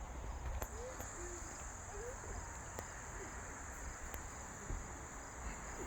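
Steady high chirring of insects in the background, with a low rumble underneath and a few faint short chirps.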